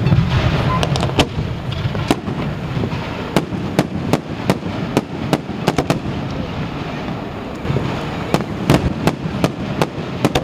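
Fireworks display with aerial shells bursting overhead: sharp bangs at irregular intervals over a continuous low rumble, with a quick cluster of reports about eight seconds in.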